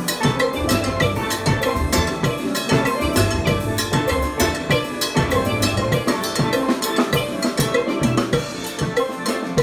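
Steel band playing: a full ensemble of steel pans with a drum kit keeping a steady, driving beat.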